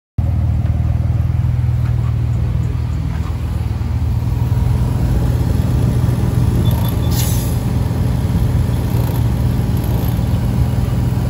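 Car engine and road noise while driving: a steady, unbroken low drone.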